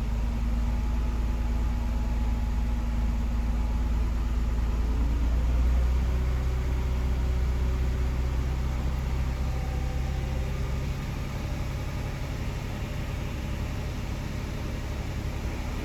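2008 Nissan Xterra's 4.0-litre V6 engine running steadily with a slight whine over its hum, the level easing a little about 11 seconds in. The whine is still there after a new alternator and power steering pump and with the serpentine belt off. The owner suspects it could come from the timing chain, water pump, transmission pump or torque converter.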